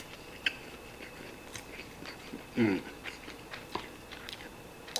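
Eating chashu fried rice: quiet chewing, with small clicks and scrapes of the spoon against the plate several times. About two and a half seconds in, a short murmur with falling pitch.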